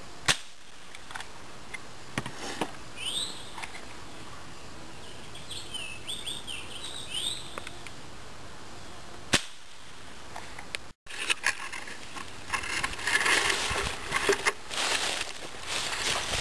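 Crosman 1377 multi-pump pellet pistols shooting: two sharp pops about nine seconds apart. Birds chirp between the shots, and from about eleven seconds in there are footsteps and rustling through dry leaves.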